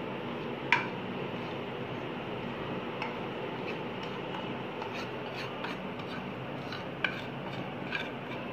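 Steel spoon scraping and tapping against a ceramic plate as dry spice powder is knocked off it, giving scattered sharp clinks, the loudest about a second in and several more near the end, over a steady background hum.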